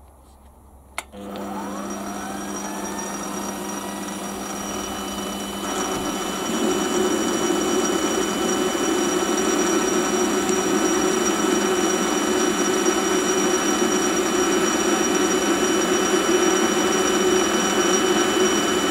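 Small electric power tool switched on with a click about a second in. Its motor spins up and then runs steadily, louder and rougher from about six seconds in as it works the axle pin.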